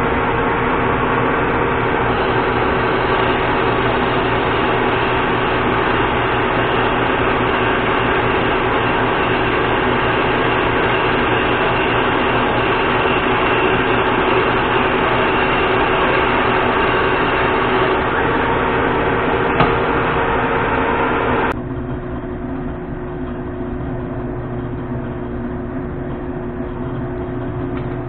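Monarch engine lathe's geared headstock running under power with a steady whine while a large twist drill feeds into a spinning Nylatron tube. About three-quarters of the way through, the sound drops suddenly as the spindle drive is stopped, leaving a quieter steady hum.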